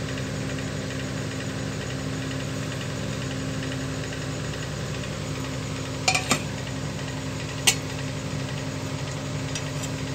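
Steady machine hum with a soft even hiss beneath, from uthappam batter cooking on a cast-iron tawa. Two short metallic clicks come about six and seven and a half seconds in.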